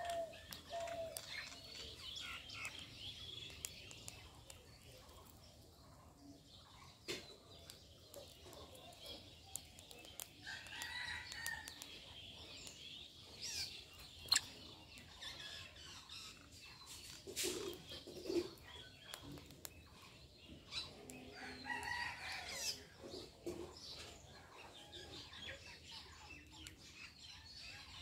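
Birds chirping and twittering, with a few sharp ticks and some lower calls about two-thirds of the way through.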